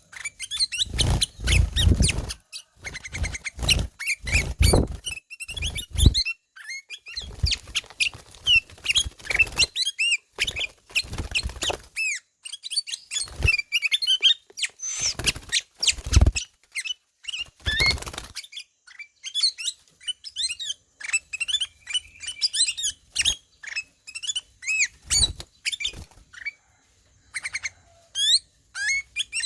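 A kutilang emas (black-capped bulbul) calling and singing in quick, short whistled phrases. Through the first half, loud noisy bursts break in between the notes; after that the phrases come clean.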